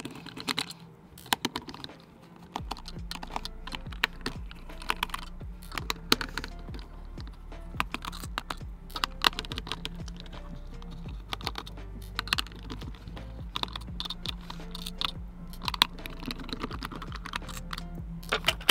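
Phillips screwdriver backing small screws out of a plastic speaker case, with the screws and case handled: light, irregular clicks and ticks. Quiet background music with steady low notes comes in about two and a half seconds in.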